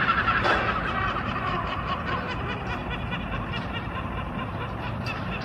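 Several gulls calling over one another in rapid, repeated laughing calls, loudest near the start.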